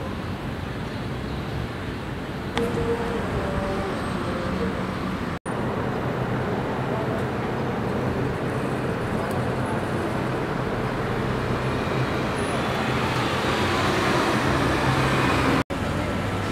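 Street ambience of road traffic: a steady rumble and hiss, broken by two abrupt dropouts, about five seconds in and near the end. In the middle stretch it grows gradually louder until the second dropout.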